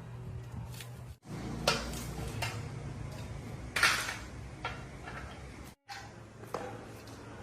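Metal parts and tools clinking and knocking several times, over a steady low hum.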